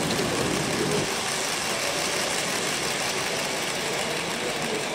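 Model steam locomotive pulling a long train of freight wagons along the layout's track: a steady running noise of wheels on rails and the locomotive's motor.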